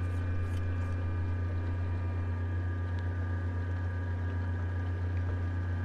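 Outboard engine of a bass boat running at steady cruising speed, a low even drone with water rushing along the hull.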